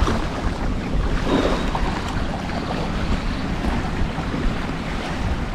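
Wind gusting on the microphone over the wash of sea water at the shore: an even, uneven-rumbling noise with no distinct events.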